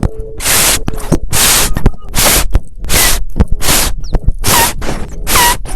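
Loud, harsh hissing bursts like blasts of static, each under half a second, repeating about once or twice a second, with sharp clicks between them. Short pitched chirps sound inside the last two bursts.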